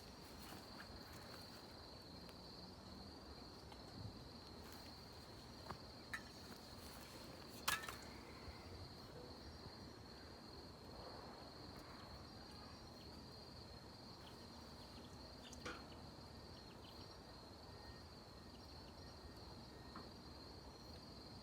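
An insect trilling steadily at a high pitch, with a few faint clicks and knocks; the loudest click comes about a third of the way in.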